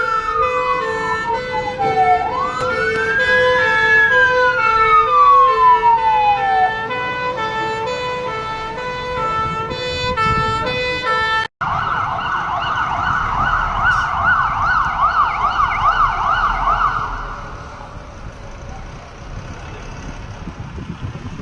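SCDF emergency vehicle sirens: a slow wail rising and falling twice over the steady pulsing tones of a second siren. After a cut about halfway in, a fast yelp for about five seconds that fades away into road traffic noise.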